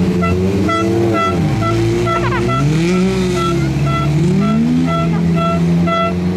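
A 1600 cc prototype autocross buggy's engine running at low revs, its pitch rising and falling in slow swells as it is blipped. Over it a steady electronic beep repeats about twice a second.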